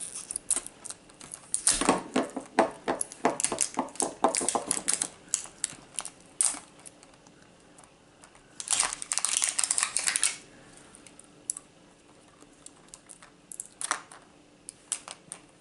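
Fingernails picking and prying at a sealed plastic Mighty Beanz capsule: a run of quick clicks and scratches, a dense crackling scrape of about two seconds a little past the middle, then a few more clicks near the end. It is a stubborn package that is hard to get open.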